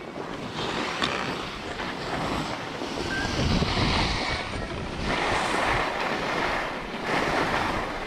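Skis scraping and carving over groomed, packed snow, the hiss swelling with each turn about four times, mixed with wind rushing over the microphone.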